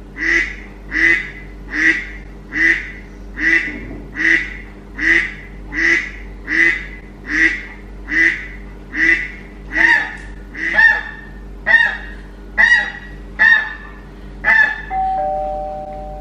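Recorded goose honking played through a phone speaker: about nineteen evenly spaced honks, a little over one a second, with the calls changing shape after about ten seconds. Near the end comes a short steady tone that drops once in pitch.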